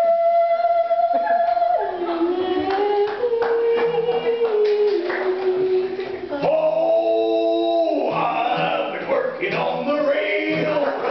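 Singing into a microphone in long, held notes that step from one pitch to the next, over a strummed acoustic guitar.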